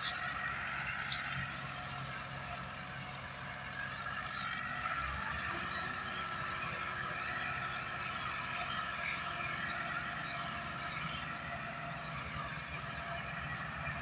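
New Holland diesel tractor engines running steadily under heavy load, pulling a loaded sugarcane trolley.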